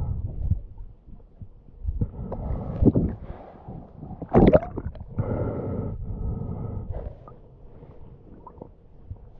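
Muffled water sloshing and gurgling, picked up by an underwater action camera as it moves through the water and breaks the surface, in uneven surges with one sharp splash about four and a half seconds in.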